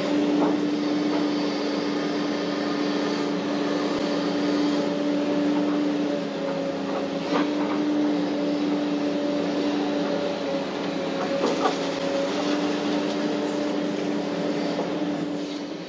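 Hitachi 850 excavator running as it works, heard from inside the cab: a steady droning hum from the engine and hydraulics, with a few sharp knocks about half a second in, around seven seconds and near twelve seconds as the bucket and boom work.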